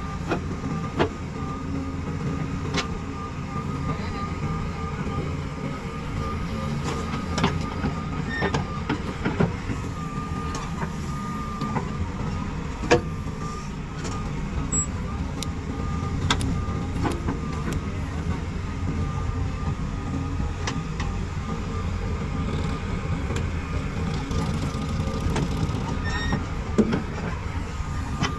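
Diesel engines of a JCB 3DX backhoe loader and tractors running steadily while loading, with a constant high whine over the low rumble. Scattered clanks and knocks stand out, the loudest about 13 seconds in and near the end.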